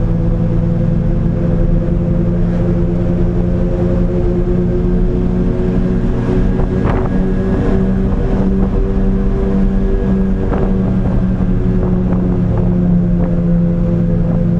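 Small truck's engine running at a steady cruise with road noise, heard from inside the cab while driving. The pitch holds level throughout.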